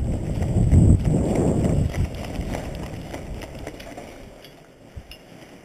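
Hurried footsteps on a debris-strewn concrete floor, with gear rustling, loudest in the first two seconds and then growing fainter. A single sharp click near the end.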